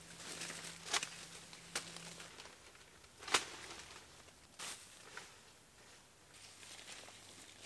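Footsteps in rubber boots through dry grass and cut leaves: soft rustling with a few irregular sharp crackles and snaps.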